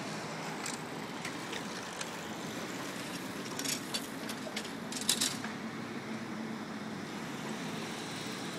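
Steady rushing noise of riding a bicycle along a city street with a hand-held phone recording, wind and traffic blended. A cluster of sharp clicks and rattles comes between about three and five seconds in.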